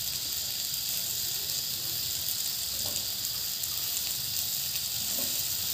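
River prawns frying in hot mustard oil in a pot, a steady sizzle.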